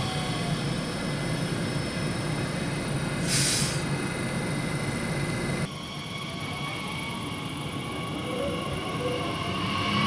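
Class 1442 Talent 2 electric multiple unit running, with steady high whining tones over rail noise and a short hiss of air a little over three seconds in. Just before halfway the sound cuts to a quieter stretch in which a Talent 2 approaches, its whine gliding in pitch and growing louder near the end.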